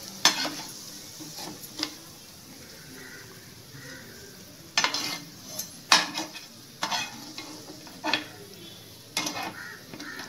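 Sliced ginger sizzling in hot oil in a frying pan, with a metal slotted spoon repeatedly scraping and clinking against the pan as the browned pieces are scooped out and drained.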